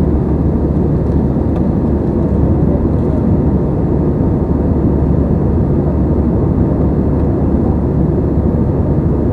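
Airbus A320-family airliner's engines and airflow heard from inside the cabin: a steady, low drone that does not change, with a faint steady tone above it.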